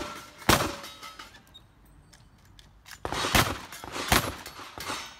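Gunshots from a shooter on the firing line, each followed by a short echo. One shot comes about half a second in, then after a pause a quick string of about five shots begins around three seconds in.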